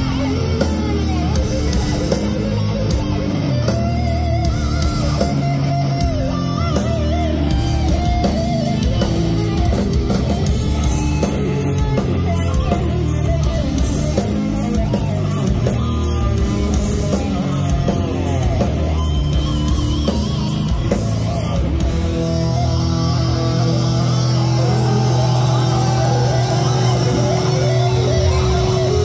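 Death metal band playing live through a club PA: heavily distorted electric guitars, bass and drum kit. About 22 seconds in, the riffing gives way to a long held chord.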